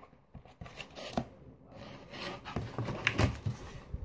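A large sheet of cardboard being handled up close, rubbing and scraping with irregular taps and knocks. The loudest knocks come about a second in and again around three seconds in.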